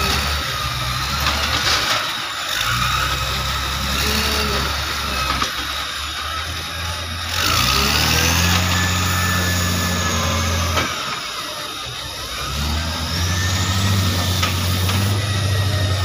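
Diesel engine of a wheel loader with a log fork working, revving up about halfway through as it lifts a log off a logging truck, dropping back, then revving again near the end. Thin high squeals sound over the engine.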